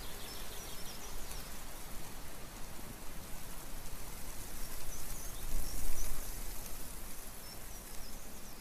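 Steady rushing noise of an outdoor nature recording, with a few faint high chirps and a swell about five and a half seconds in.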